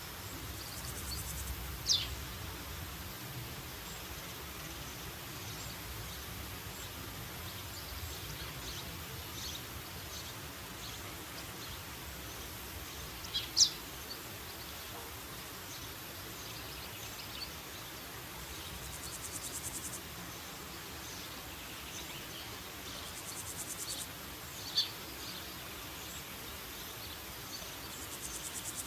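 Woodland ambience: a steady hiss of background noise with a few short, sharp bird calls that fall in pitch, three in all, and brief high-pitched insect trills now and then.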